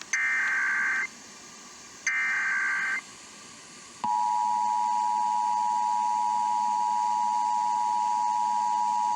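Emergency Alert System SAME data header: two one-second bursts of rapid two-pitch data tones, a second apart. About four seconds in, the steady two-tone EAS attention signal begins and holds.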